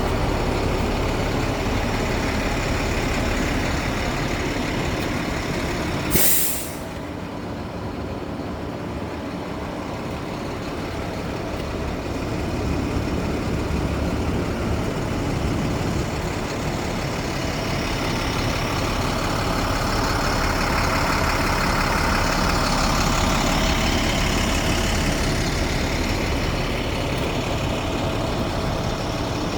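Diesel-powered vacuum excavator truck running steadily, with one short, sharp hiss of released air, like an air-brake release, about six seconds in.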